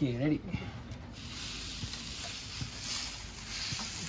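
Marinated meat kebab skewer sizzling on a hot stainless-steel barbecue hotplate. The hiss starts suddenly about a second in as the skewer is laid down with tongs, then holds steady.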